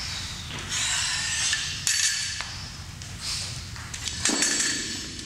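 Metallic clinking and clanking of gym equipment, with sudden louder knocks about two seconds in and again near the end.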